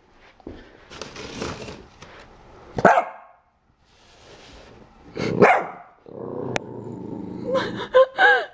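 Pembroke Welsh corgi puppy barking: two sharp barks about three and five and a half seconds in. Then a low growl runs into a few quick high yips near the end.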